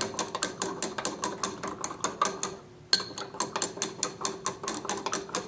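A stirring rod clinking rapidly against the inside of a glass beaker as solid potassium bromide is stirred into copper sulfate solution to dissolve it, about five ticks a second. The ticking breaks off briefly a little under halfway through, then resumes with a sharp click.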